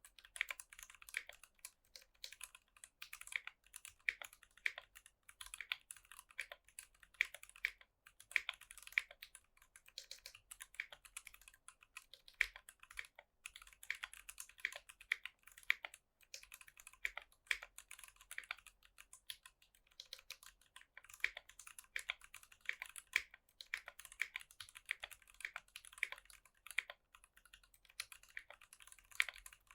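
Typing on a Kbdfans Tofu60 mechanical keyboard with stock, unlubed Durock Koala tactile switches, an aluminium plate and PBT keycaps. It makes a steady stream of rapid keystroke clacks, broken by a few short pauses.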